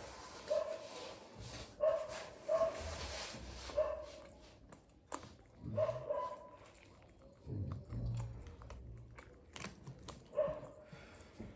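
A dog barking: several short, separate barks, most in the first four seconds and one more near the end.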